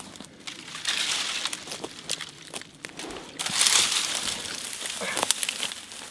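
Dry branches and reeds rustling, crackling and snapping as a person pushes through bare brush, with louder stretches about a second in and again halfway through.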